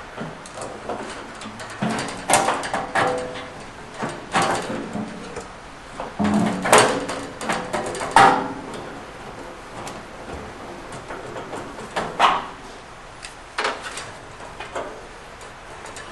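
Metal parts clanking and scraping irregularly as a gas water heater's new main burner assembly and its tubing are worked into the combustion chamber, some knocks ringing briefly.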